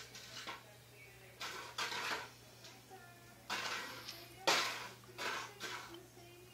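A kitten pushing a bowl around a stone tile floor: the bowl scrapes and clatters in several bursts, the loudest about four and a half seconds in.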